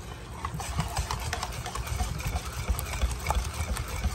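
Wire whisk beating wet banana bread batter in a stainless steel mixing bowl, with quick, irregular clinks and knocks of the whisk against the bowl.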